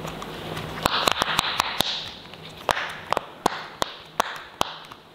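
Silicone pop-it fidget toy bubbles being pressed, a string of sharp irregular popping clicks with soft handling rustle between them.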